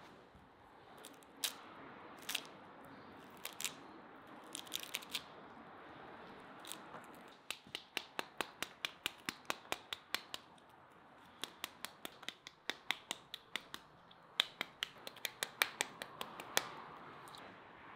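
A spoon tapping the back of a halved pomegranate to knock the seeds out: sharp taps in runs of about three or four a second, with a few scattered taps before the runs begin.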